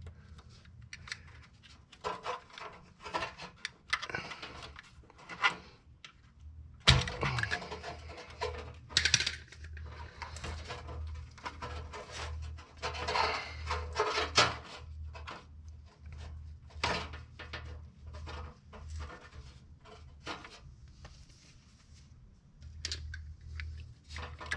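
Irregular clicks, scrapes and rustles of hands working a cut rubber grommet off a car's hood release cable. A low steady hum comes in with a sharp click about seven seconds in.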